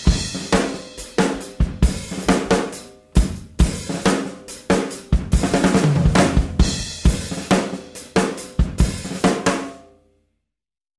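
Math rock band recording: a drum kit playing a run of hits on snare, cymbals and bass drum over ringing guitar notes. The track ends about ten seconds in, leaving silence.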